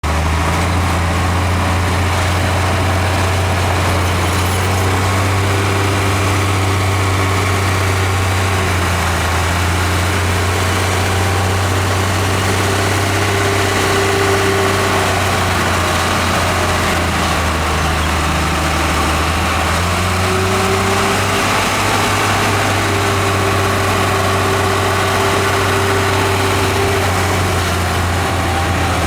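Heavy diesel engine of earthmoving equipment running steadily with a deep hum. A higher whine comes in twice, each time for several seconds.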